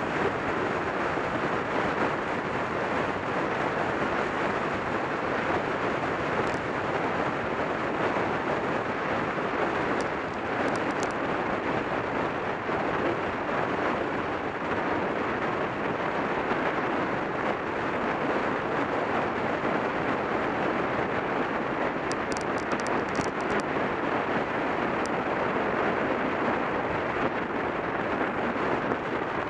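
Steady rushing wind noise on the microphone of a camera moving along a road at speed, with no distinct engine note.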